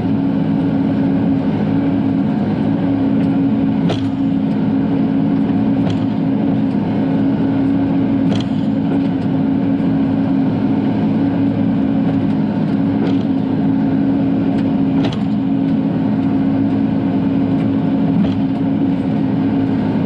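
Diesel engine of a Bobcat E42 mini excavator running steadily under work, heard from the cab, with a few short sharp knocks from the machine scattered through.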